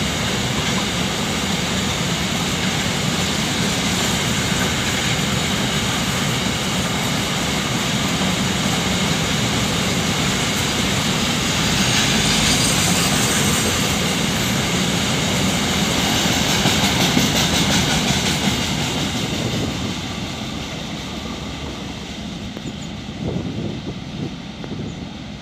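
Goods train of open-top freight wagons rolling past: a steady rumble and rattle of wagon wheels on the rails, loudest about halfway through, then fading from about twenty seconds in as the train pulls away.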